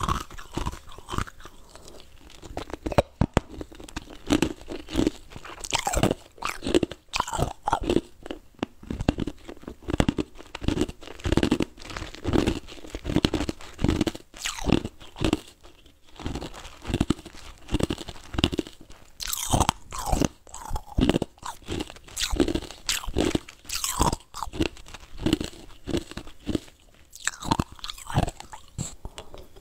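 A person biting and chewing ice right at the microphone: a run of crisp crunches, a few a second, with some louder bites scattered through.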